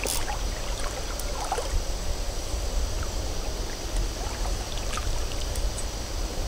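River water running and lapping around the legs of a wading angler, over a steady low rumble, with a few faint ticks.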